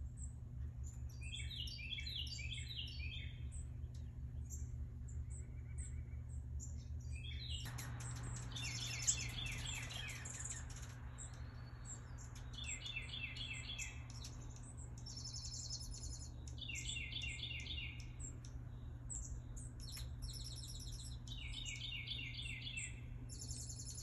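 Songbirds singing: a short phrase of quick notes repeated every few seconds, with higher chirps in between, over a steady low hum.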